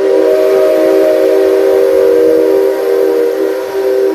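Whistle of the C57 steam locomotive: one long, loud, steady blast of several tones sounding together, stopping near the end. It is sounded as the locomotive starts to turn on the turntable.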